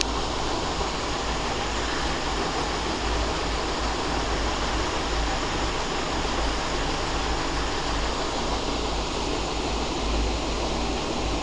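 Steady rushing noise with a fluctuating low rumble and no distinct events.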